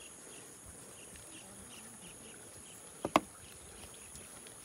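Insects in a steady high-pitched whine, with a short high chirp repeating two or three times a second. About three seconds in come two sharp clicks in quick succession; the second is the loudest sound.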